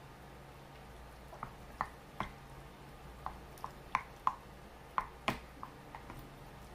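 Wooden spoon knocking against a glass bowl while stirring rice in broth: about a dozen light, irregular taps.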